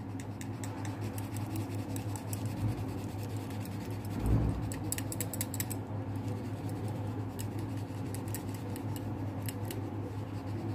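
Quick scratchy strokes of colouring on paper as a square on a worksheet is filled in red, over a steady low hum, with a soft thump about four seconds in.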